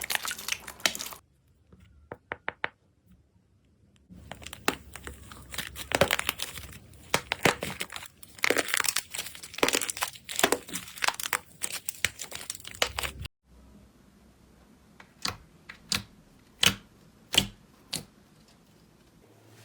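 Slime being squeezed and pressed by hand, giving dense crackling and crunching that cuts off abruptly partway through. Then come about six separate sharp pops or clicks, a second or less apart.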